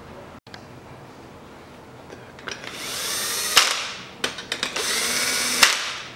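Power screwdriver running down the bolts of an engine's upper oil pan in two whirring bursts of about a second each. Each burst ends in a sharp click.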